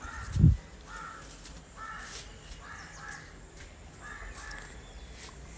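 Crows cawing repeatedly, short caws at roughly one a second. A single low thump about half a second in is the loudest sound.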